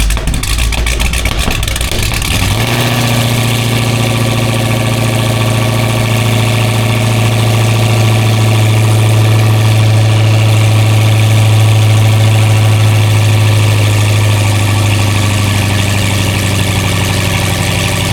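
Cammed Dodge Hellcat's supercharged V8 firing up on its first start after sitting for the winter, flaring high for about two and a half seconds before settling into a steady idle.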